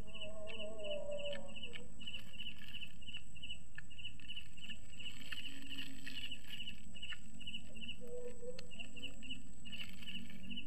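A cricket chirping steadily in the night grass, a high pulsed chirp about three times a second. A brief wavering call-like sound comes over it in the first second or so and again briefly about eight seconds in.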